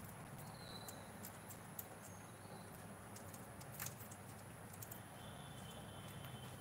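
Scattered light clicks and taps of a parakeet's claws and beak on a metal mesh cage top, over a steady low hum.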